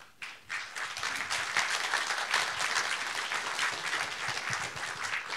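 Audience applauding, many hands clapping together. It starts just after the opening and eases off near the end.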